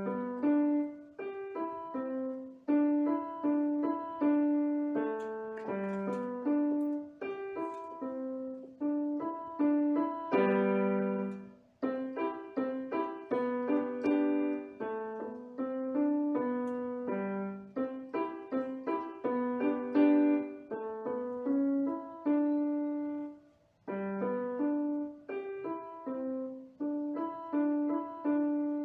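Portable electronic keyboard played with a piano sound: a simple two-handed beginner's piece, separate notes that start crisply and die away. The playing stops briefly twice, about twelve and twenty-four seconds in.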